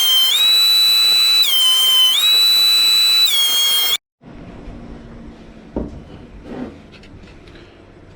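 Background music with a high melody stepping back and forth between two notes, cutting off suddenly about four seconds in. After it, quiet room sound with a low hum and a couple of soft knocks.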